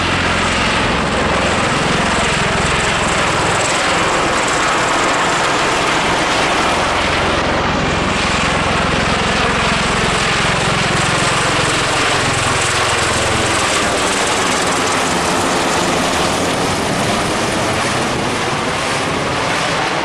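A Marine MV-22 Osprey tiltrotor flying low overhead with its rotors tilted up, loud and steady. The low beat of its rotors weakens after about twelve seconds as it moves away, while a broad higher rush carries on.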